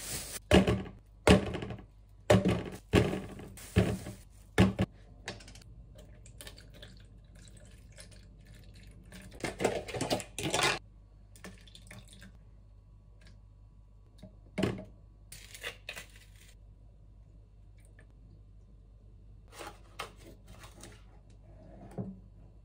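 Cherry tomatoes being dropped into a plastic container with a plastic bag rustling, a quick run of sharp knocks and crinkles in the first few seconds. About ten seconds in comes a short pour of liquid, then a few light knocks and clicks of containers and a spoon.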